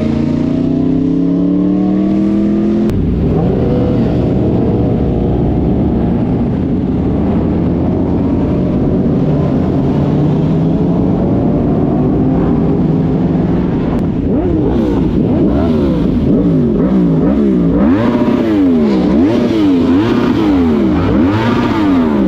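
Sport motorcycle engines: an engine note rising steadily under acceleration, then a steadier riding note, and in the second half an engine revved up and down over and over, about once a second.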